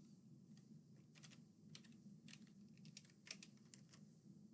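Faint computer keyboard typing: irregular key presses, a few a second, over a faint steady low hum.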